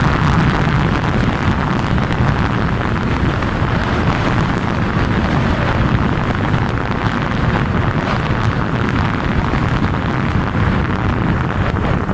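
Steady rush of wind buffeting the microphone, mixed with the road and engine noise of a vehicle moving at speed.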